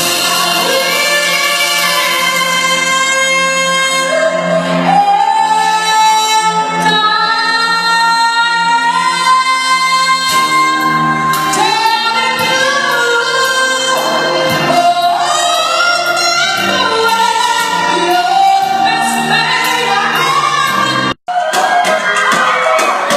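A song: singing over an instrumental backing, with long held notes that slide between pitches. Near the end the sound cuts out abruptly for an instant, and a different piece with a busy percussive beat starts.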